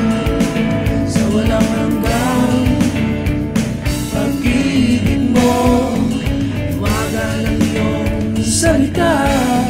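Recorded Tagalog gospel song playing: a man singing over guitar and band accompaniment.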